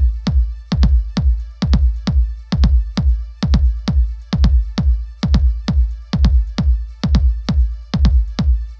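Electronic dance music with a steady drum-machine beat and a heavy bass thump about two to three times a second.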